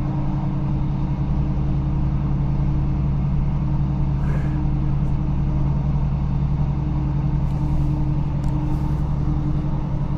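Diesel multiple unit running steadily, heard from inside the passenger coach: a constant low engine hum and rumble of the moving train.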